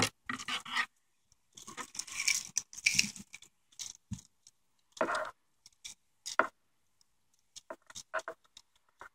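Plastic clicks, scrapes and wire rustling from hands working a GM E38 PCM wiring-harness connector and its bundle of wires: an irregular string of short, sharp clicks and brief scrapes.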